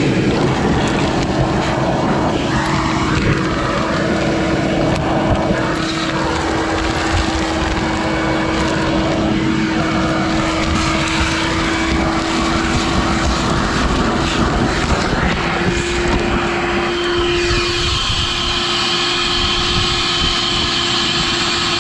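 Vacuum cleaner running with a steady motor hum and air rushing through its hose. About three-quarters through, the hum steps up a little in pitch and a thin high whistle joins in.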